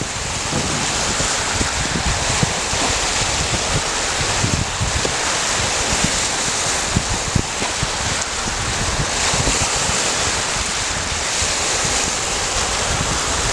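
Lake waves breaking and washing over a pebble shore in a steady, continuous wash, with wind buffeting the microphone.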